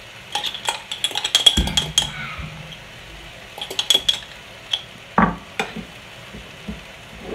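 Metal spoon scraping out a small glass jar of pesto, clinking against the glass in quick clusters of clicks, with a couple of dull knocks, then stirring into mashed potato in a bowl.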